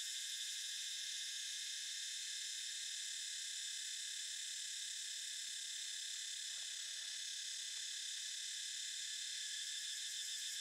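Steady chorus of insects: a dense, shrill trill with a fine rapid pulse.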